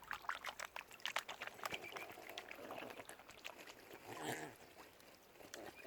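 Waterfowl at the water's edge: a run of short clicks and splashes from birds dabbling in the water, with faint calls and one louder call about four seconds in.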